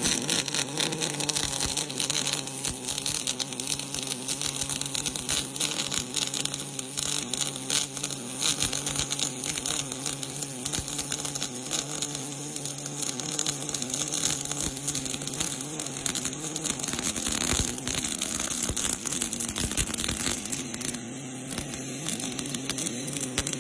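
MAG welding arc from a wire-fed torch, giving a steady, dense crackling buzz as it lays a weld bead.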